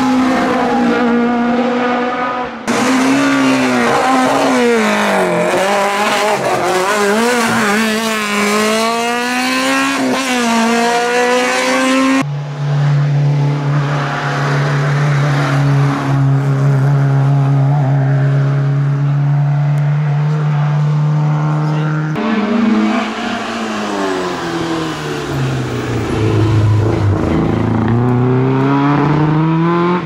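Fiat 127 race cars' small four-cylinder engines driven hard, the note climbing with revs and dropping at each gear change, in a few clips cut together. In the middle stretch the engine holds one steady note for about ten seconds before the climbing and shifting resumes.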